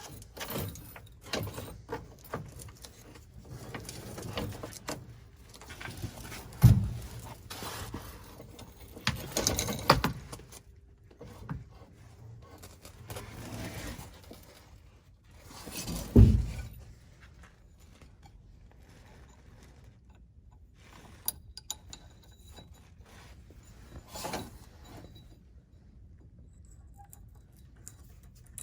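Irregular metal clicks, clinks and rattling from hand work on a pickup's parking brake cable and its fittings, with two heavy knocks, one about a quarter of the way in and one just past halfway, then only scattered light clicks.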